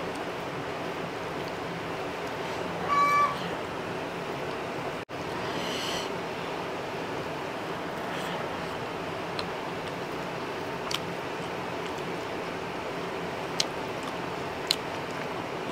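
A cat meows once, short and clear, about three seconds in, and more faintly again about six seconds in, over a steady hiss. A few light ticks come later on.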